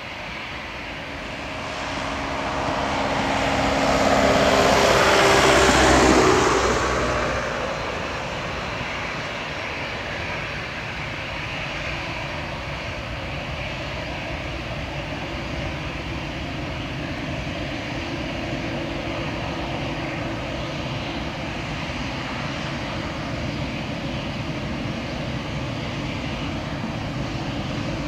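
Airbus A320-211 jet engines running steadily at taxi power. From about two to eight seconds in, a louder sound swells and fades while its pitch slides downward, like something passing by.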